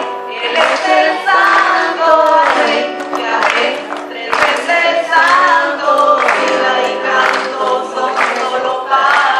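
Choir singing with guitar accompaniment.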